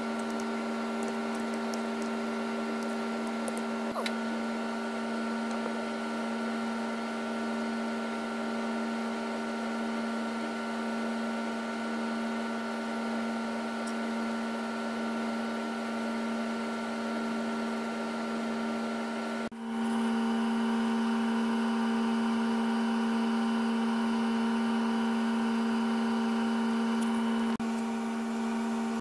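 Steady electric motor hum from a machine running in the background, with a few faint ticks. The hum gets louder about two-thirds of the way through.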